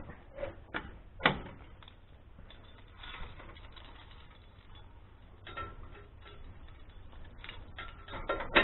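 Scattered clicks and light metal rattles as the cable of a 2,500 lb ATV winch is pulled out by hand through its roller fairlead. There is a sharp knock about a second in and a cluster of clicks near the end.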